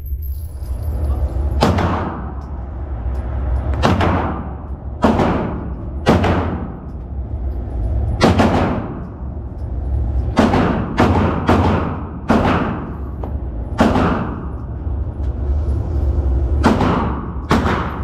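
Gunshots at a firing range: about a dozen irregularly spaced shots, some in quick runs of two or three, each with a ringing tail, over a steady low rumble.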